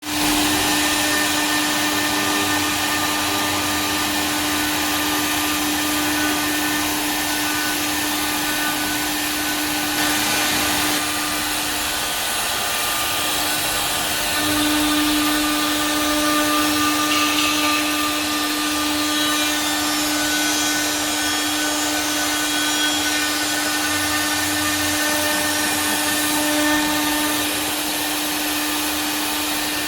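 CNC jigsaw machine that cuts with a router bit, running: a steady motor whine with several fixed tones over a constant hiss. The main tone dips briefly partway through.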